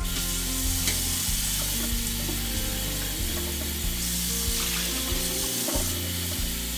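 Kitchen tap running steadily, its stream splashing over a plastic jug being rinsed and into a stainless steel sink.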